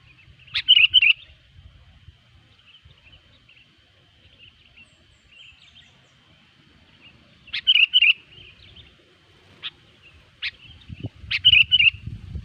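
Sooty-headed bulbul (kutilang) singing short, bubbly phrases three times: about a second in, about eight seconds in, and near the end, with a couple of single sharp notes between them. A faint steady high tone runs underneath, and a low rumble comes in near the end.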